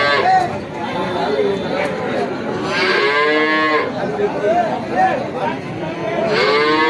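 Cattle mooing: one long call about three seconds in and another starting near the end, with a few short, fainter calls between.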